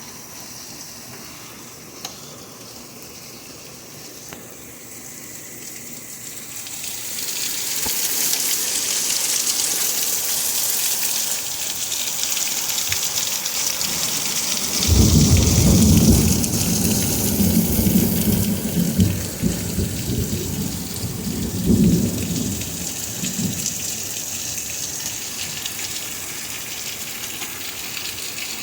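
Rain falling, growing heavier about seven seconds in, with a long low rumble of thunder starting about halfway through that swells twice and fades away over several seconds.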